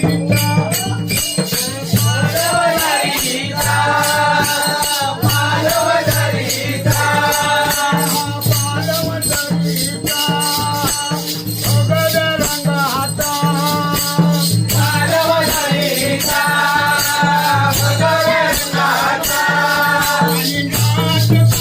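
An elderly man singing in phrases with musical accompaniment: a fast, even percussion beat and low held notes underneath.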